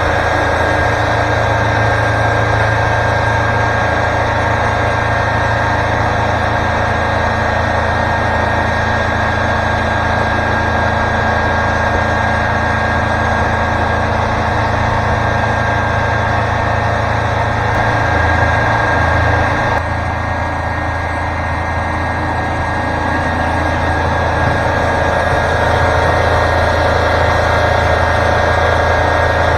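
Wood-Mizer LT40 Super Hydraulic sawmill running steadily, its engine and band saw making a constant machine drone, with a brief shift in pitch and a slight drop in loudness about two-thirds of the way through.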